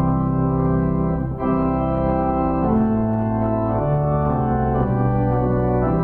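Organ playing slow, sustained chords that change every second or so.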